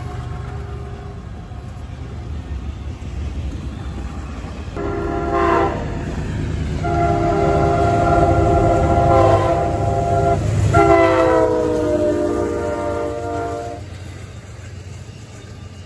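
Diesel freight locomotive's air horn sounding over the rumble of a passing train: a short blast about five seconds in, then a long blast, then another that drops in pitch at its start as the locomotive goes by.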